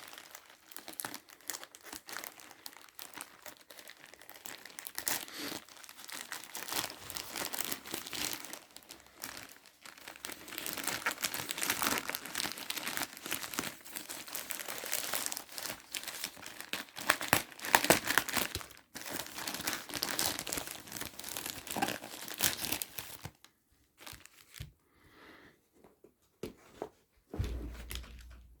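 Shipping package being cut open with a karambit knife: protective plastic and bubble wrap crinkling and tearing almost without a break for most of the time, then a few scattered rustles and a low thump near the end.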